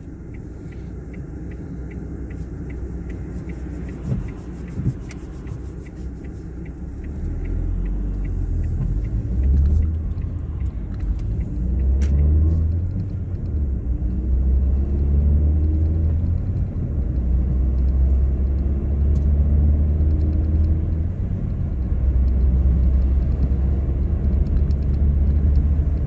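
Ford Fiesta Mk7 driving, heard from inside the cabin: a low engine and road rumble that grows louder about a quarter of the way in as the car picks up speed, the engine's pitch rising now and then.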